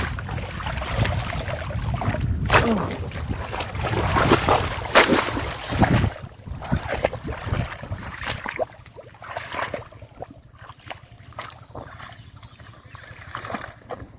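Water splashing and sloshing in a river, busier and louder for the first six seconds, then quieter with only scattered splashes.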